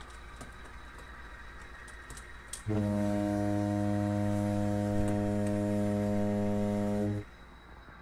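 A long, steady, low horn-like blast that starts suddenly about two and a half seconds in, holds one unchanging pitch for about four and a half seconds, and cuts off sharply.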